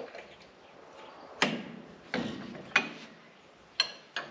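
Sharp metallic clicks, about five at uneven intervals, from a steel wrench working the sway-block bolt of an Allis Chalmers 180 tractor loose.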